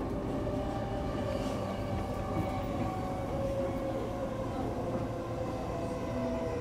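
Running sound inside a JR East E233-series electric train: steady rumble of wheels on rail, with a motor whine that slowly drops in pitch as the train slows.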